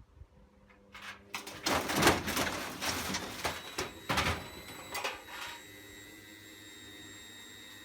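Partly dismantled washing machine running under power: a few seconds of loud rattling and scraping, then a steady motor hum with a thin whine.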